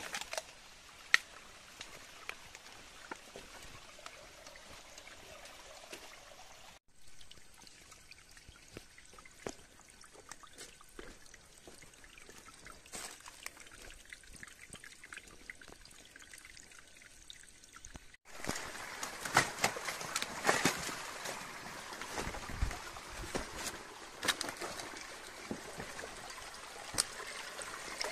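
Small stream of water trickling and splashing, with short sharp ticks scattered through. The sound breaks off abruptly twice and is louder in the last part.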